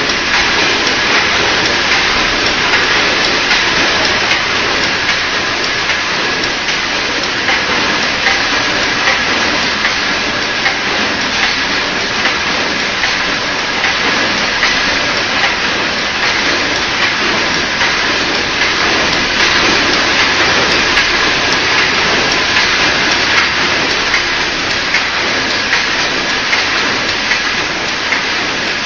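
Double-twist hexagonal wire netting machine running: a loud, steady, dense clatter of many small metal ticks.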